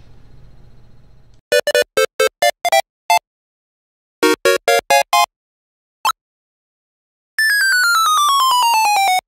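Retro 8-bit video-game style jingle: two quick runs of short buzzy beeps and a single beep, then a long tone falling in small steps near the end. Faint room noise comes before the jingle starts.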